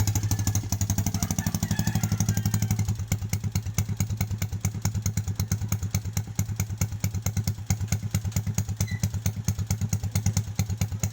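SYM RV1-2 motorcycle running steadily at low revs through a new aftermarket exhaust pipe, giving a rapid, even putting beat.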